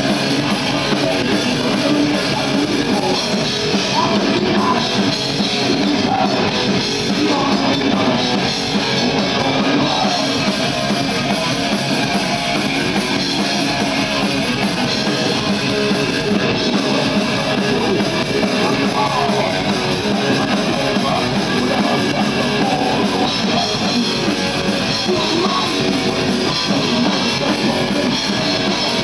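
Heavy metal band playing live at full volume: distorted electric guitars, bass and a drum kit in a dense, unbroken wall of sound.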